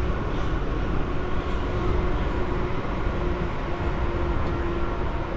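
Electric multiple-unit passenger train running at speed, heard from inside the carriage: a steady rumble of wheels on track, with a faint hum that comes and goes and is a little stronger near the end.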